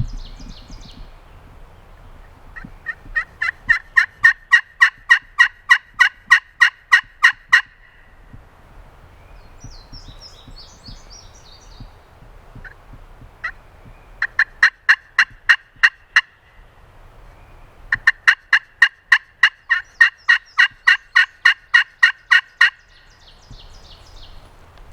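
A turkey call making three long runs of loud, evenly spaced hen yelps, about four a second, with pauses between. It is calling to draw an answer from a gobbler.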